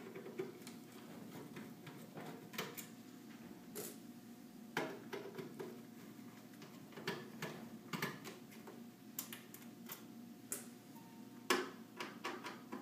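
Screwdriver working screws out of a server sled's sheet-steel cover: irregular small metal clicks and taps as the bit seats and the screws turn, the sharpest click near the end, over a faint steady hum.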